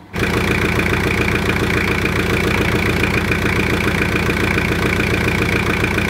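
Jeep Cherokee XJ's diesel engine idling steadily.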